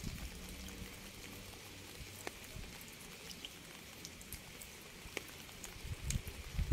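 Steady rain: a fine hiss with scattered single drops ticking on a surface. A louder low rumble of running water or music returns near the end.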